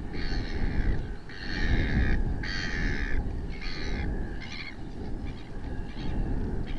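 A bird off-camera gives a series of five harsh, cawing calls, the later ones shorter and fainter, over a steady low rumble.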